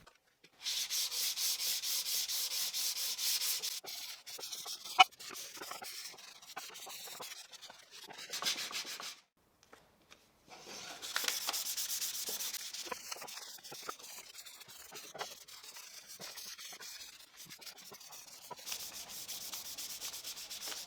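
Fine-grit sandpaper rubbed by hand over wood in quick back-and-forth strokes, a rhythmic scratchy hiss. It is loudest in the first few seconds, then lighter and more uneven, with a brief pause about nine seconds in.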